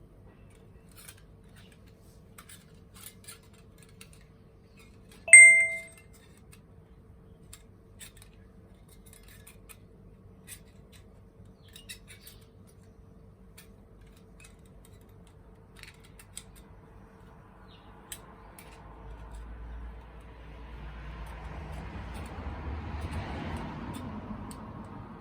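Small wood fire crackling with scattered faint pops. About five seconds in comes a single loud, ringing metallic clink. Near the end a rush of noise rises and falls away.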